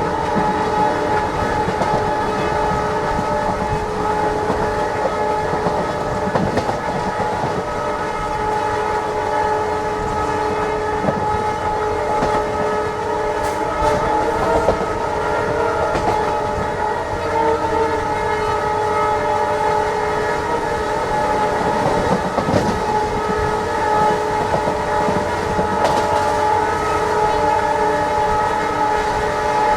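Diesel locomotive horn honking non-stop, held steady on several tones without a break, over the running noise of the train on the rails.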